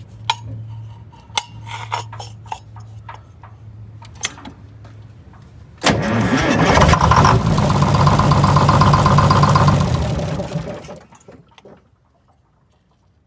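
Detroit Diesel 6-71 two-stroke inline-six diesel cranked over by its starter for about five seconds during a compression test on one cylinder. Before it, small clicks and knocks of the gauge being handled; the cranking starts suddenly about six seconds in and dies away near the end.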